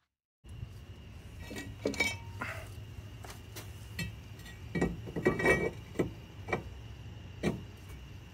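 Brake rotor being slid by hand over the wheel studs onto the hub, giving a series of short metallic clinks and knocks, some ringing, the loudest about five seconds in.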